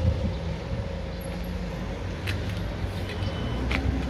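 A vehicle engine running steadily at a low pitch, with two sharp clicks in the second half and a faint short high beep near the end.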